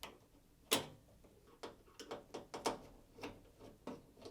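A screwdriver undoing the screws that hold a washing machine's water inlet valve to the back panel: a run of irregular light clicks and ticks, the loudest under a second in.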